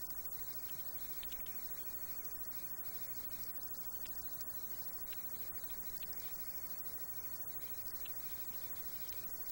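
Steady underwater background hiss with faint, scattered clicks.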